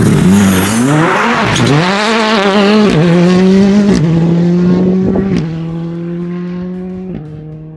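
Turbocharged four-cylinder rally car accelerating away at full throttle, loud at first, its engine pitch climbing and dropping through quick gear changes. Then it holds a steady note that steps down with each later upshift as it fades into the distance.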